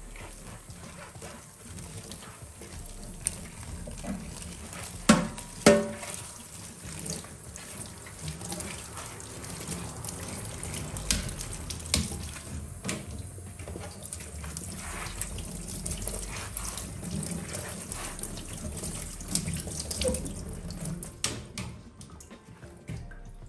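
Kitchen tap running into a stainless-steel sink while a metal range-hood grease filter is rinsed, with a few sharp clanks of the filter against the sink, the loudest two about five seconds in.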